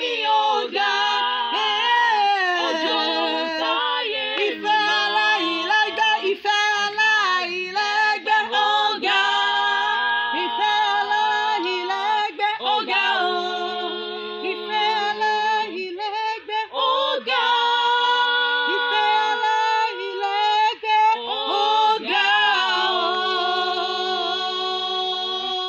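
A small group of women singing an unaccompanied worship song, the notes held long and steady in the second half.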